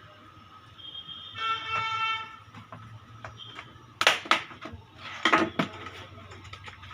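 A short honk of a vehicle horn a second or so in, followed by a few sharp clicks and knocks, typical of a plastic keyboard being handled.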